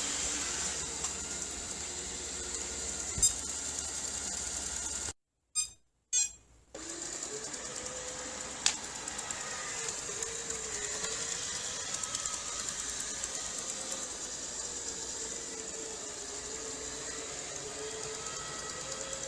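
Robot vacuum cleaner running, a steady motor whirr with a high whine whose pitch wavers up and down as it works. The sound cuts out briefly about five seconds in, then comes back, with a single click a few seconds later.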